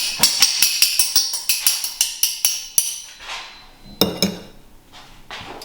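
Rapid clinking of tableware, about five ringing strikes a second for roughly three seconds, followed by a short clatter about four seconds in.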